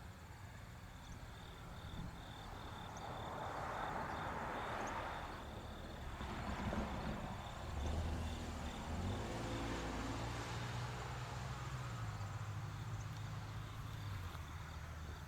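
Crickets chirping in a steady, pulsing high trill. A vehicle swells past about four seconds in, and a low engine hum follows through the second half.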